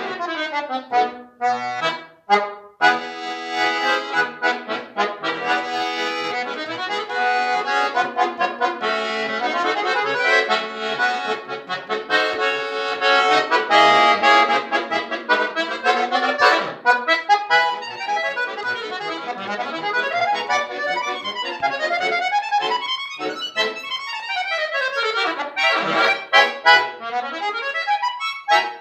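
Solo button accordion playing fast, full-textured music: clipped chords with short breaks about two seconds in, then dense passages, and rapid runs sweeping up and down the keyboard near the end.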